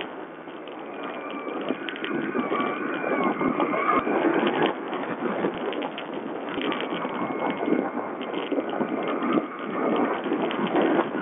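Sherco 125 4T enduro motorcycle's small four-stroke engine running under way over rough dirt, its note rising and falling with the throttle. Wind buffeting and frequent knocks and rattles from the bike over the ground run through it, recorded muffled on a low-quality watch camera.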